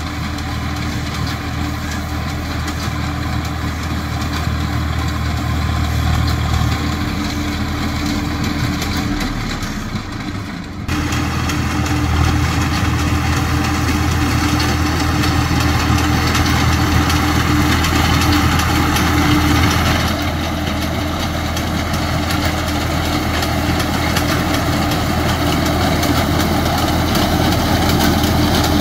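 Tractor diesel engine running steadily while powering a front-mounted reaper binder cutting and binding wheat. The sound jumps suddenly louder about eleven seconds in and changes again about twenty seconds in.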